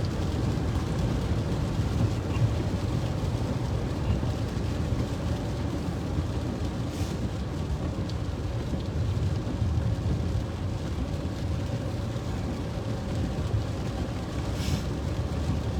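Steady road and engine noise from inside a moving car, a low rumble.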